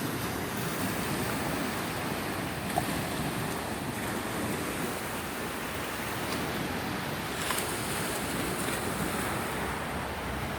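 Sea surf washing steadily onto the beach, with wind on the microphone.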